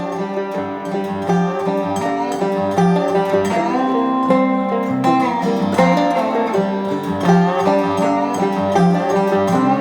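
Background music: upbeat acoustic bluegrass-style tune with plucked banjo and guitar and a steady beat.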